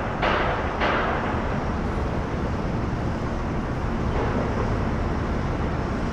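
Steady low rumbling background noise, with two short whooshing bursts in the first second.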